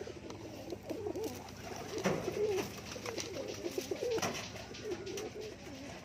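A flock of domestic pigeons cooing, many low warbling coos overlapping, with a few sharp clicks among them.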